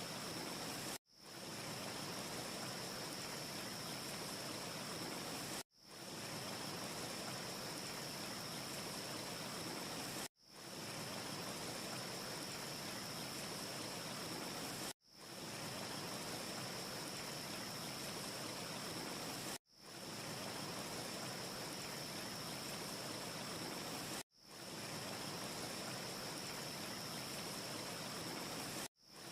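Steady hiss of a looped ambience recording, sounding like rushing water or rain, with no fire crackles. It cuts out briefly about every four and a half seconds and swells back in as the short loop restarts.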